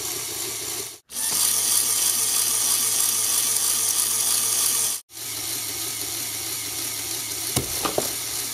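A Lego Power Functions motor drives a homemade Lego piston pump with a steady mechanical whirring clatter of plastic gears and pump. The sound breaks off for an instant twice, is louder for a few seconds in the middle, and has two sharp knocks near the end.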